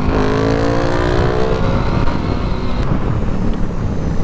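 Yamaha MT-07 parallel-twin motorcycle engine through an M4 aftermarket exhaust, pulling up through the revs with a rising pitch for about a second and a half, then running on under a dense rush of wind and road noise.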